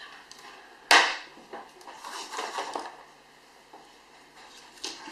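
Small tools handled on a soldering bench: one sharp click about a second in, then a stretch of scraping and rustling, and a couple of lighter clicks near the end.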